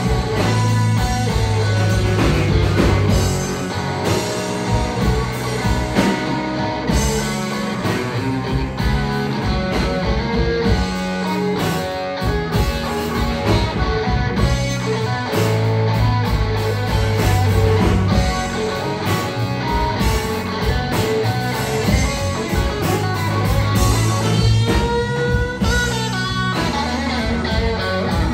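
Live blues band playing an instrumental passage: a Stratocaster-style electric guitar leads over bass guitar and drum kit, with bent notes near the end.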